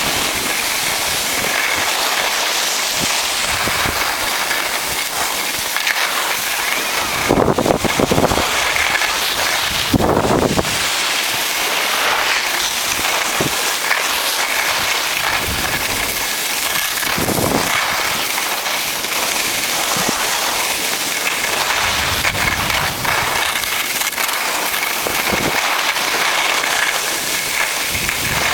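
Skis sliding and scraping over packed snow during a downhill run: a steady, loud hiss. Wind buffets the microphone in low gusts, most strongly about 7 to 8 seconds in and again at about 10 seconds.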